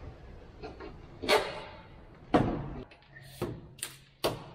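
Sharp knocks and clunks from working on a Mercedes Sprinter's front door as its trim is stripped to get at the window glass, about five of them, the loudest a little past halfway.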